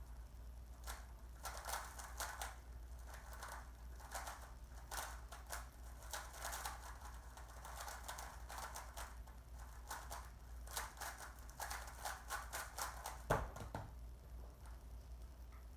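Rubik's cube being turned fast during a timed speedsolve: a dense run of rapid plastic clicking and clacking, with one louder knock about 13 seconds in.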